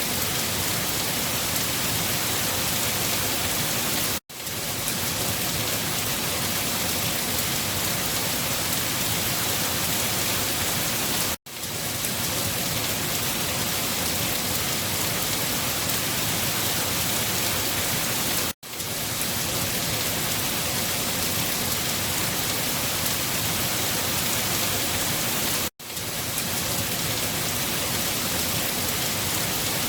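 Steady, dense rainfall. It is broken by a split-second dropout about every seven seconds, after which the rain quickly fades back in.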